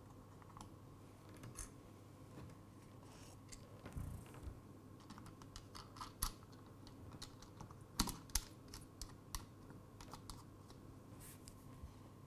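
Irregular faint plastic clicks and taps as a spotlight attachment is handled and fitted onto the top mount of a DJI Mavic 2 Enterprise drone, with two sharper clicks about eight seconds in.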